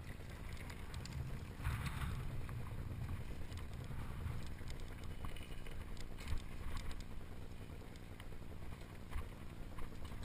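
Mountain bike rolling down rocky singletrack, heard through a bike-mounted camera: a steady rumble of wind and tyre noise on the microphone, with scattered clicks and knocks as the bike rattles over rocks.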